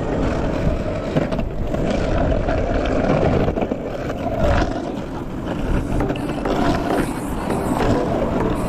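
Longboard wheels rolling over pavement, a steady low rumble.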